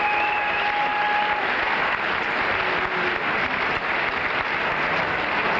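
Crowd applauding steadily, with a single held tone sounding over it for the first second and a half.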